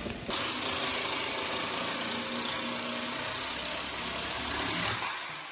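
Handheld jigsaw cutting a herringbone wood floor plank: the motor and blade run steadily, starting abruptly and stopping about five seconds in.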